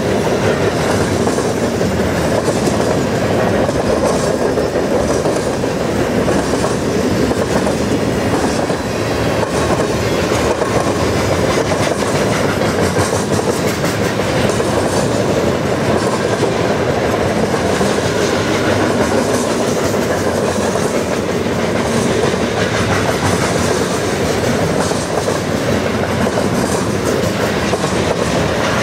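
Freight cars of a long mixed train (autoracks, tank cars and covered grain hoppers) rolling past at speed, a steady loud rumble with the wheels clattering over the rail joints.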